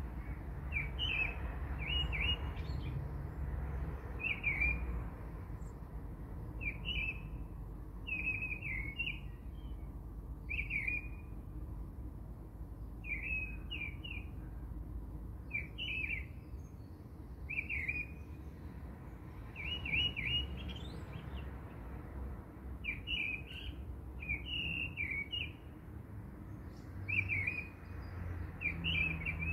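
A small bird calling in short, high, quick phrases every second or two, over a low steady rumble.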